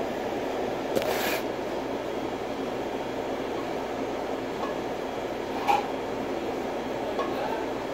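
Steady rushing hum of a commercial kitchen exhaust hood fan. A brief rustle sounds about a second in, and a single sharp clink near six seconds.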